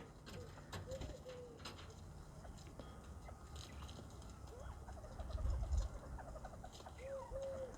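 Northern bobwhite quail giving soft, low calls: a few short arching notes about a second in and a quick run of them near the end, with light ticking in between. A brief low rumble comes about two-thirds of the way through.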